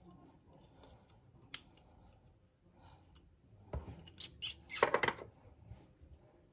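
Clear plastic packaging of electric toothbrush heads being handled: soft rustling, then a quick cluster of sharp plastic clicks and crinkles about four to five seconds in.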